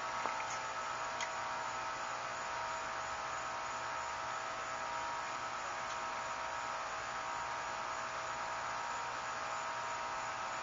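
Steady hum over a constant hiss, with a couple of faint clicks about a second in.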